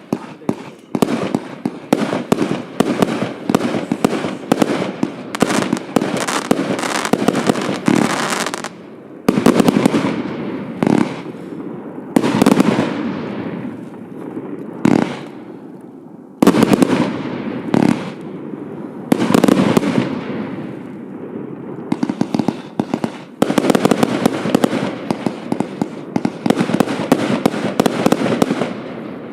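Hallmark Fireworks Vanquish 320-shot compound cake firing: rapid volleys of shots for the first eight seconds or so, then a run of separate louder bursts, each trailing off over a second or two, and another fast volley of shots in the last six seconds.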